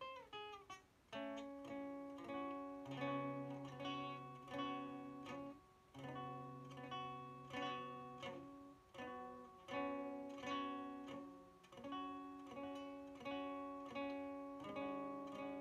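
Acoustic guitar with a capo playing a slow run of plucked chords, each struck and left ringing.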